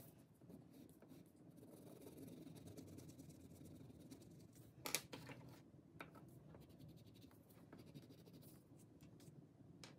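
Faint scratching of a wax crayon colouring on paper, with a single sharp tap about five seconds in.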